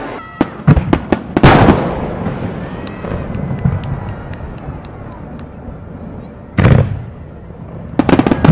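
Aerial fireworks display: a quick run of sharp bangs, the loudest about a second and a half in with a long echoing tail, then scattered crackling, and further booming bursts about seven seconds in and near the end.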